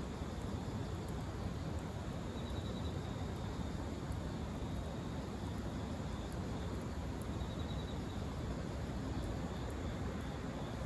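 Steady low outdoor rumble with faint scattered ticks and, now and then, a faint high chirping trill.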